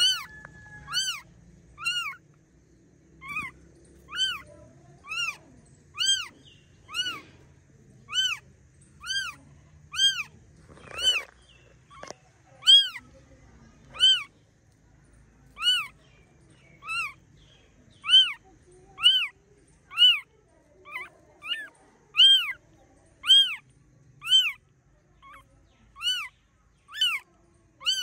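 Newborn kitten mewing over and over, about once a second: short, high-pitched cries that each rise and fall in pitch.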